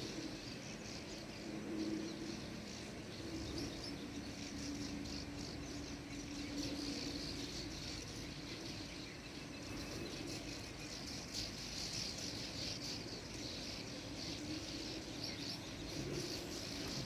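A large colony of streak-throated swallows twittering, a dense continuous chatter of many birds at once. A low steady hum runs under it and fades out in the first half.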